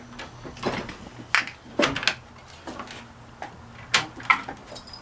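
Scattered metal clicks and knocks from a mortise door lock being worked with a skeleton key, about seven sharp clicks in a few seconds.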